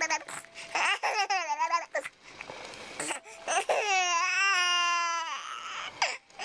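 Tired, grumpy baby fussing: drawn-out whiny cries that waver up and down in pitch, the longest about a second and a half and falling at its end, with short breathy sounds between.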